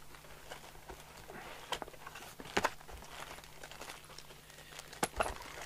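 Plastic bag and cardboard packaging crinkling and rustling as contents are lifted out of a radio's box, with a few sharp crackles and knocks.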